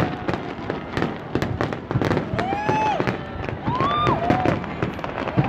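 Aerial fireworks going off in a rapid, continuous run of bangs and crackles. Two short rising-and-falling tones sound over them about two and a half and four seconds in.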